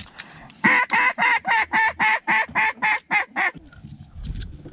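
Mallard duck call blown by a hunter: a fast, loud run of about a dozen quacks, roughly four a second, meant to draw in passing ducks. After a short pause the quacking starts again at the very end.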